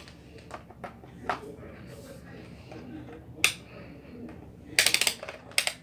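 Handling noise of sharp clicks and taps, one louder click about three and a half seconds in, then a quick flurry of crackling clicks about five seconds in.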